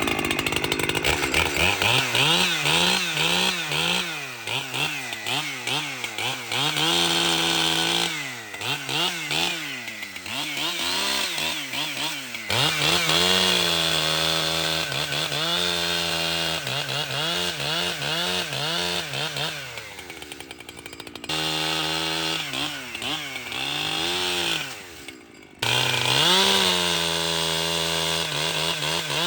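Echo CS-7310 two-stroke chainsaw running hard and cutting wood. Its pitch sags and recovers again and again as the chain loads up and clears. The sound breaks off abruptly twice in the second half.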